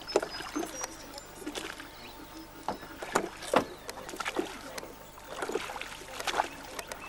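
Irregular splashes and knocks of water against a small boat, a string of short sharp sounds spread unevenly over the seconds.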